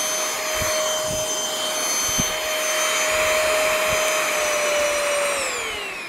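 Homeika cordless stick vacuum, used as a handheld on sofa cushions, running with a steady high whine over its airflow hiss, with a few soft bumps. About five seconds in it is switched off and the whine falls away as the motor spins down.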